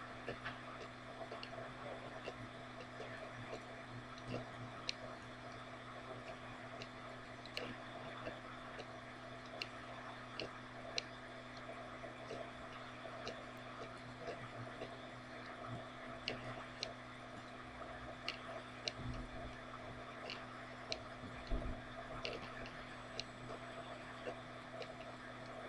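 Faint room tone: a steady low hum with scattered, irregular faint ticks and clicks.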